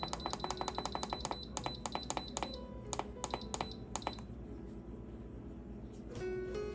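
Instant Pot IP-LUX control panel beeping at each press of its minus button as the cook time is stepped down: a rapid run of short, high beeps, about five a second, stopping about four seconds in. Quiet background music underneath.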